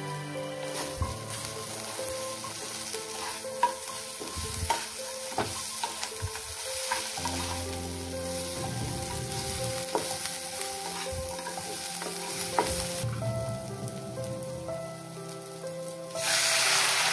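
A spatula stirs dry instant noodles and vegetables frying in a black kadhai, with a steady sizzle and scattered clicks and scrapes of the spatula against the pan. About a second before the end, water poured into the hot pan sets off a sudden loud hiss.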